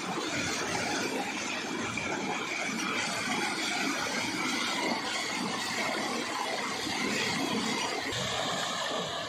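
Steady splashing of several streams of water pouring from the buckets of a Persian wheel into its metal trough.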